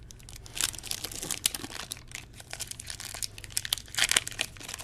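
A trading-card pack's wrapper (2015 Topps Platinum Football) crinkling and tearing as it is opened by hand: a run of sharp crackles that is loudest near the end, over a low steady hum.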